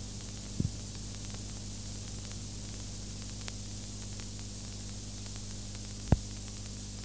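Steady electrical hum and hiss of a recording's background noise, with two brief low thumps, one about half a second in and a louder one about six seconds in.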